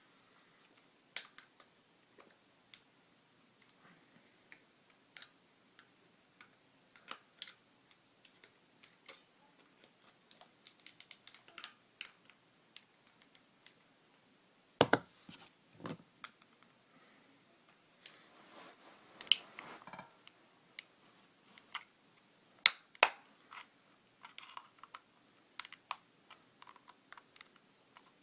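Plastic case of a TV remote being pried apart with a small screwdriver: scattered light clicks and taps, a few sharp louder snaps past the middle, and a short scrape between them.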